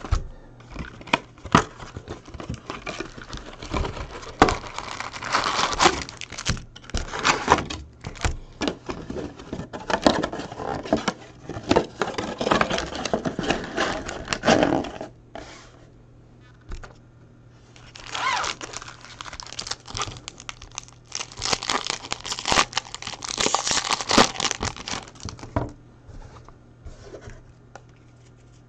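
Foil-wrapped trading card packs crinkling and rustling against each other and the cardboard box as they are pulled out of a hobby box and stacked, in two long bouts of handling with a quieter pause a little past the middle and quiet again near the end.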